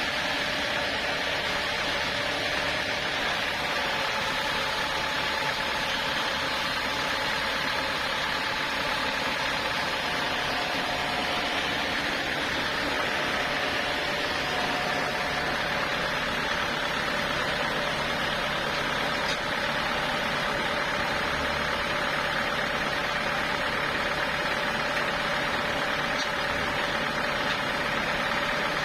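Sawmill machinery running steadily: an even mechanical drone with a few held tones that does not change.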